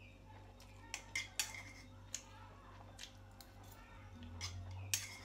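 A fork clinking and tapping against a bowl in a handful of short sharp clicks, the loudest near the end, while noodles are eaten and slurped from the bowl.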